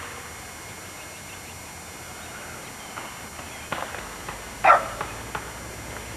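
A single short, loud animal call about three-quarters of the way in, with a few faint knocks before it, over steady tape hiss.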